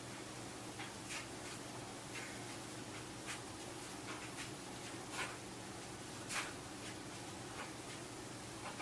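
Faint, irregular light scrapes and clicks of hands handling a bow and its string, over a steady low hum of room tone.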